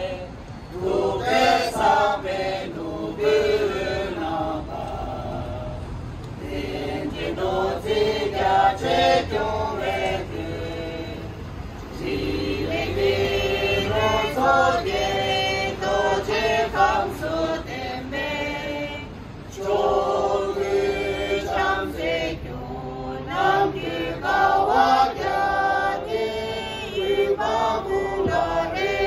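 A group of men and women singing together in unison, a slow chant-like song sung in phrases with long held notes.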